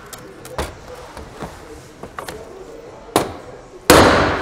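Light metal clicks as a steel ball and tools are set on a stabilizer bushing bracket, a small knock about three seconds in, then a hard hammer blow on the steel ball near the end, ringing briefly. The blow peens over the rivet that holds the bracket together.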